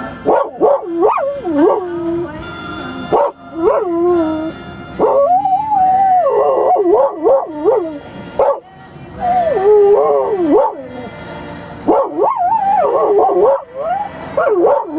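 A dog howling and yipping in a run of wavering cries that slide up and down in pitch, coming in bouts with short breaks between them.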